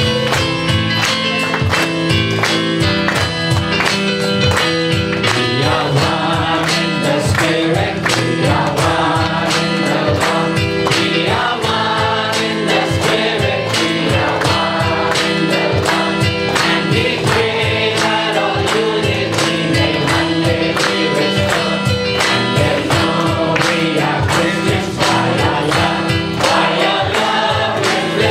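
Gospel worship music: a choir singing over a steady beat with percussion and held keyboard or instrument notes.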